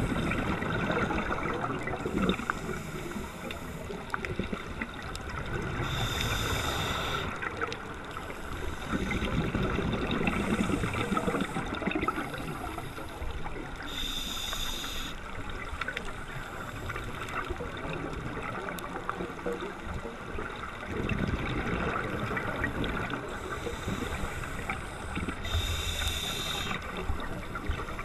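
Scuba diver breathing through a regulator underwater. A short hiss comes on the inhales, three times and several seconds apart, with bubbling, gurgling exhalations between them, over a steady fine crackle.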